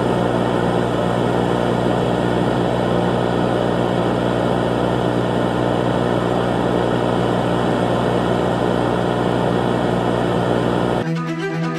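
A propeller aircraft's engine running at a steady drone. It cuts off abruptly near the end, replaced by fiddle music.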